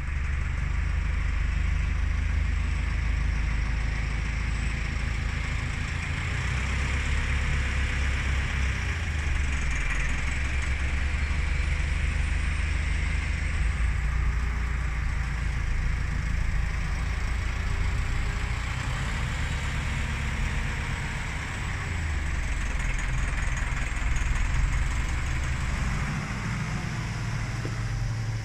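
Tractor engine running steadily with a low drone that swells and eases a little with the load, as the tractor works maize silage with a front-mounted pusher blade.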